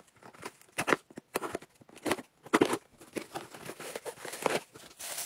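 Scissors cutting open a small cardboard box, then the box's flaps pulled open and the plastic bag inside handled: a run of irregular snips, scrapes and clicks, with a longer crinkling rustle near the end.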